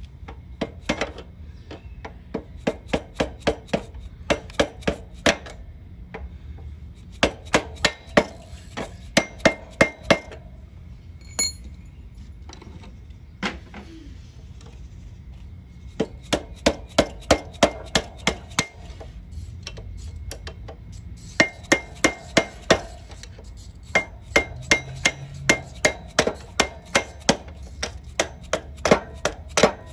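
Hammer striking a metal drift to drive the rear axle out of a 1968 Honda CT90's swingarm: runs of sharp, ringing metal-on-metal blows, about three a second, with short pauses between the runs.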